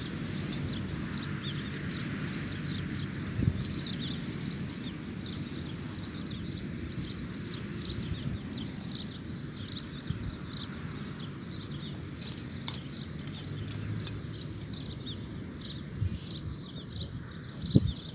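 Birds chirping at dawn: many short, high calls overlapping several times a second, over a low steady rumble, with a single thump just before the end.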